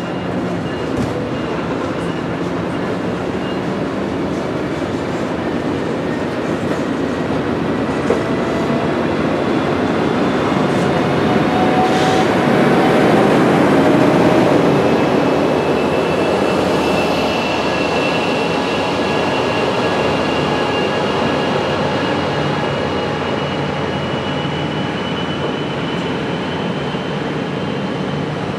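An Amtrak California passenger train set rolling past as it is shoved along the track, its cars grinding on the rails with a faint high wheel squeal. It grows louder to a peak about halfway through, then eases off.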